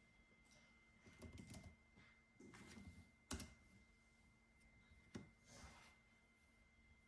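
Faint computer keyboard typing in a few short bursts, with a couple of sharper single clicks between them, over a faint steady high whine.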